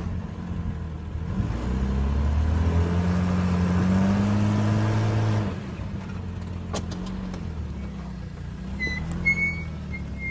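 Jeep Cherokee XJ engine revving under load as the rig crawls up a rock ledge, its pitch climbing for a few seconds and then dropping back to a low, steady idle about halfway through. A single sharp click comes a little after that.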